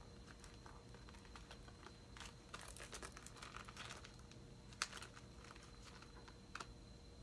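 Faint rustling and light clicks of a small card-case wallet and its contents, cards and paper receipts, being handled, with one sharper click about five seconds in.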